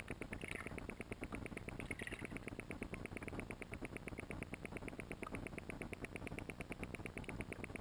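Muffled underwater sound heard through a camera's waterproof housing: a faint, steady, fast ticking, about ten ticks a second, over a low rumble.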